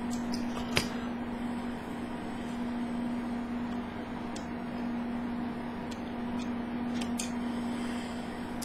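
Steady background hum with a few small clicks and taps from a screwdriver and an external hard drive enclosure being handled, the sharpest click about a second in.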